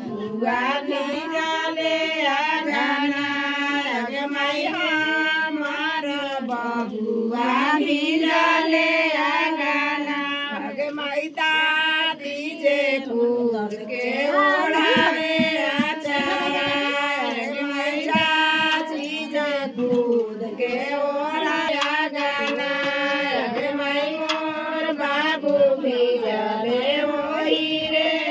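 Women singing a traditional wedding folk song, a bathing song for the groom, in long held lines with brief pauses between phrases.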